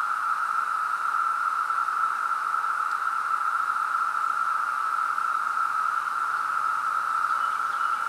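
Chorus of 17-year periodical cicadas: many males calling at once, blending into one steady, unbroken drone.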